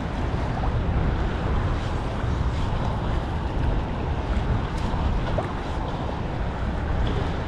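Steady low rumble of wind buffeting the microphone, over the wash of choppy sea waves.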